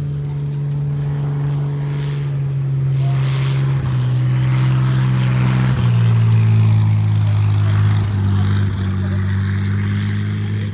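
Light propeller aircraft engine running with a steady drone, its pitch stepping lower a few times and the sound growing louder through the middle before easing off near the end.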